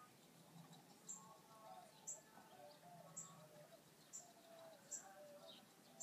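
Faint outdoor birdsong: a short, high chirp repeats about once a second over softer, wavering bird calls.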